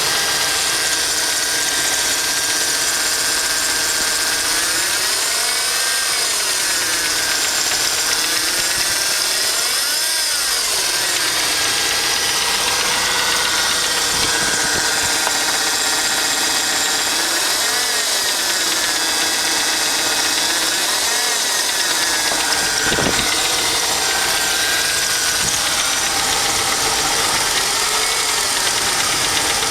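BMW E36's M43 four-cylinder petrol engine running warm, revved up and let fall back several times, with a knock from the engine. The knock comes only when the engine is warm; from cold it is silent.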